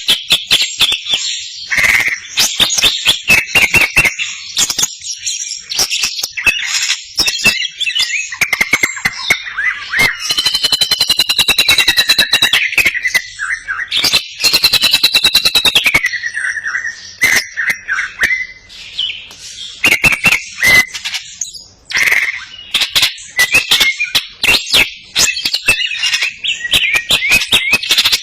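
A cucak ijo (green leafbird) singing continuously. Its song mixes whistled notes that slide up and down with sharp clicks, and a fast rattling trill from about 10 to 16 seconds in. The song includes mimicked cililin notes.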